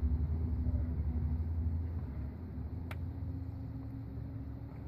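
A low steady rumble with a faint hum, and one sharp small click about three seconds in from the disc brake pad and its hardware being handled.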